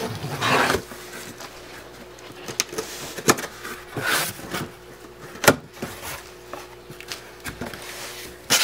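Box cutter slicing through the packing tape on a cardboard box, then the cardboard flaps being pulled open and handled, with scattered sharp knocks and rustles of cardboard.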